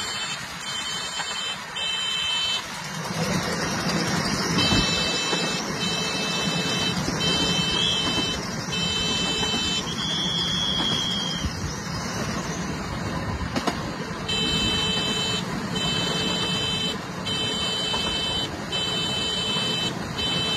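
Steady running noise of a train on the track, with a low hum. Over it, a high-pitched beeping pattern repeats about once a second, pausing for a couple of seconds midway.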